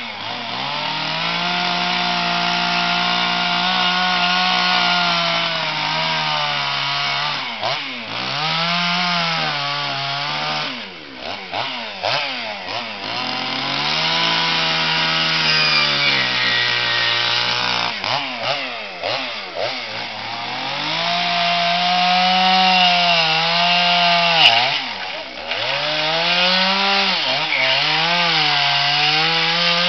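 Chainsaw carving wood, its engine running high under the cut and dropping to a lower note several times as the throttle is eased, then revving back up. A single sharp knock about three-quarters of the way through.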